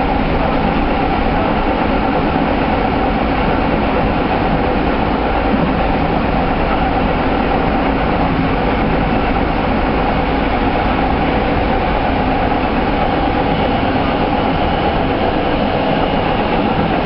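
Electric commuter train on the Keikyu line running past at a steady speed: a continuous, even rail and motor noise with steady tones and no breaks.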